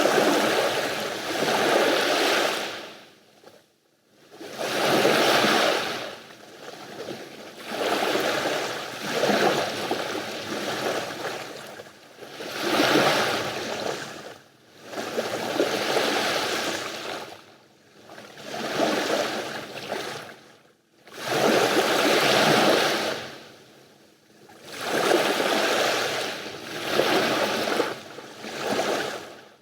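Mediterranean sea waves breaking and washing up the shore in a steady rhythm: about ten rushing surges, each swelling and fading over two to three seconds, with brief lulls between them.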